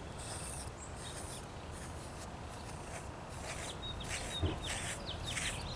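A gua sha scraper drawn across coconut-oiled skin in short, faint rubbing strokes.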